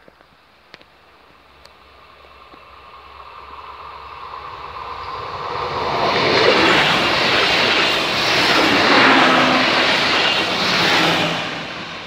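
An erixx regional train passing over a level crossing. Its wheel and running noise swells over several seconds, stays loudest for about five seconds as it goes by, then drops away near the end as it pulls off.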